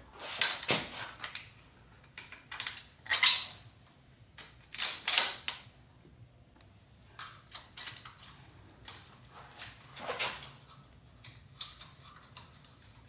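Intermittent clinks and rattles of metal hardware being handled as bar clamp base pieces and their bolts are fitted by hand, in about half a dozen short bursts, the loudest about three and five seconds in.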